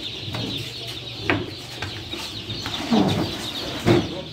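Crowd of caged chickens clucking, with a steady chatter of short high chirps and three louder calls spread through.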